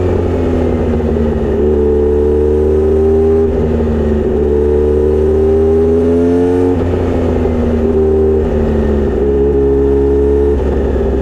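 Kawasaki Z900RS inline-four running through a short straight-pipe exhaust with a 70 mm silencer while being ridden. Its pitch rises gently and steps to a new note several times, as at gear changes.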